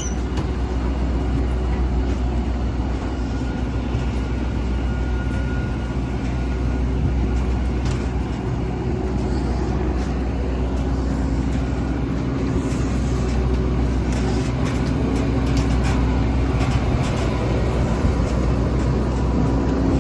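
Steady low rumble of a moving vehicle heard from inside, with faint clicks and rattles. A steady hum grows stronger near the end.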